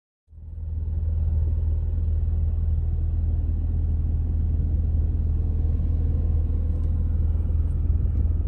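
A car driving along: steady low road and engine rumble that fades in just after the start.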